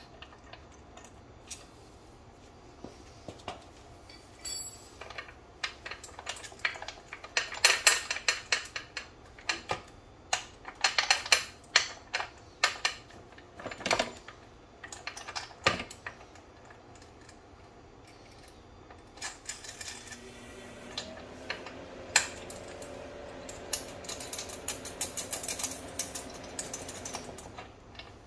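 Motorcycle drive chain clicking and rattling over the sprockets of a Yamaha FZ1 as the rear wheel and chain are worked by hand, in irregular runs of light metallic clicks. A faint steady hum comes in about two-thirds of the way through.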